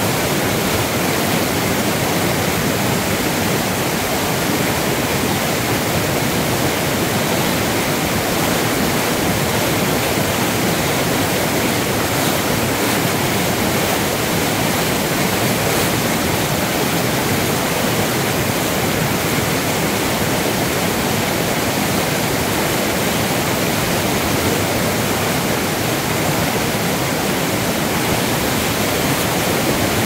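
Mountain stream rushing over rock ledges in small white-water cascades, a steady, even rush of water.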